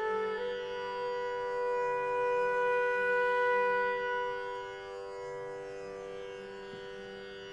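Concert flute holding one long note in raga Yaman, swelling and then fading about five seconds in, over a steady drone.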